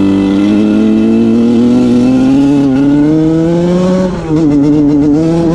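KTM SX125's two-stroke single-cylinder engine pulling in gear, its pitch climbing slowly. About four seconds in the throttle is eased: the note dips and wavers unevenly, then picks up again. The uploader says the carburettor needs adjusting and that this can be heard.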